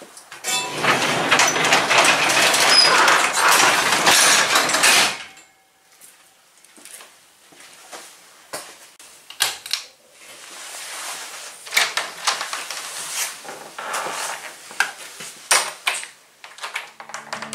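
Overhead sectional garage door pulled down by hand, its rollers rattling along the tracks for about four and a half seconds. Scattered clicks and knocks follow, with a quieter stretch of rattling later on.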